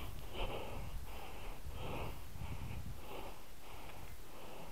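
Heavy rhythmic breathing close to the microphone, soft rushing breaths about two a second.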